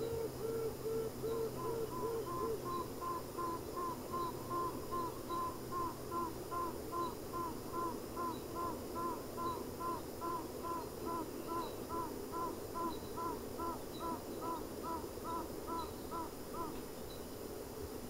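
Honey bee queens piping inside an observation hive: rapid series of short, arched notes, about three a second, a lower series fading out about three seconds in while a higher series carries on until near the end, over the colony's hum. Piping from rival queens is the sign the colony is about to swarm, with virgin queens ready to emerge, too late to split the colony.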